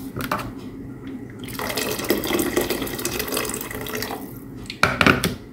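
Water pouring in a steady stream into a stainless steel pot of lentils and rice. It starts about a second and a half in and lasts about two and a half seconds, followed near the end by a couple of sharp knocks.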